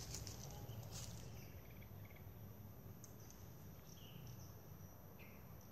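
Faint outdoor ambience: a steady high insect drone, with a few short faint chirps.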